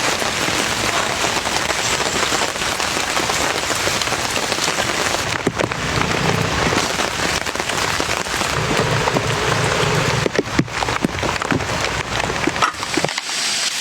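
Steady rain pattering on a surface, with a few sharper drop or tap sounds about halfway through and again later.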